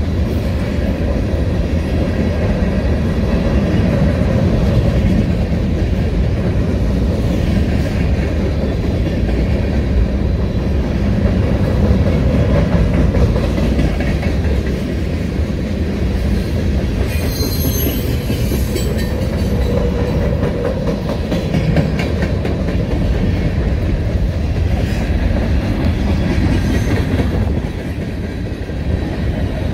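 Freight train cars rolling past close by: a steady low rumble of steel wheels on rail with clickety-clack over the rail joints. A brief high-pitched wheel squeal rises out of it a little past halfway.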